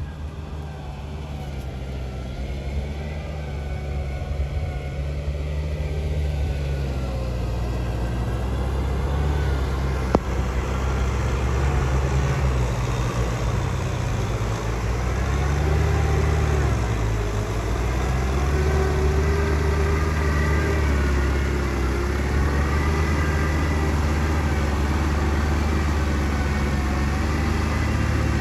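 Diesel engines of two Kubota M6040SU tractors running under load in deep paddy mud. The engine note grows louder over the first several seconds, sags and recovers about two-thirds of the way through, and there is one sharp click about ten seconds in.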